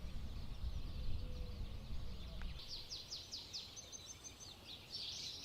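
Small birds singing, with a fast run of short descending chirps a little past the middle and more high notes after. Under the first half is a low rumble that cuts off abruptly.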